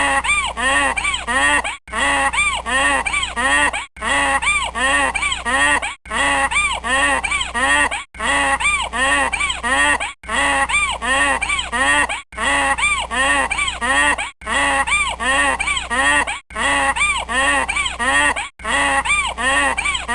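Donkey braying in quick rising-and-falling notes, the same two-second bray repeated over and over with a brief dropout between repeats.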